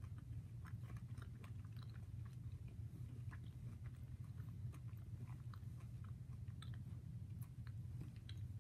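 Faint chewing of a milk chocolate bar with toffee and pretzel pieces: many small, irregular crunchy clicks from the mouth. A steady low hum runs underneath.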